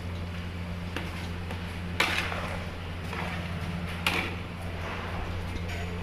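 Kitchen clatter: a few sharp knocks, about one, two and four seconds in, over a steady low hum.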